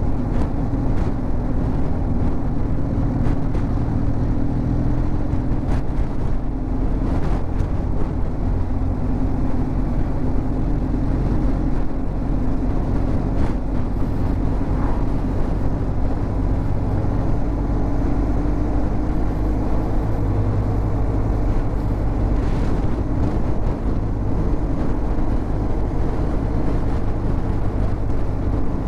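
Motorcycle engine running steadily while riding, its note slowly rising and falling, over a heavy low rumble.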